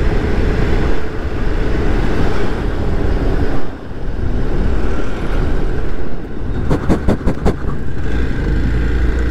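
Hero Xpulse 200's single-cylinder engine running at road speed, with wind rushing over the microphone. The sound dips briefly a little before four seconds in, and a short run of sharp clicks comes around seven seconds in.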